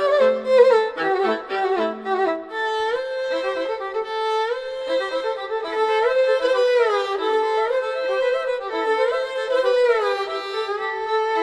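Background music led by a violin-like melody, with sliding notes over a sustained accompaniment, playing through the video's end.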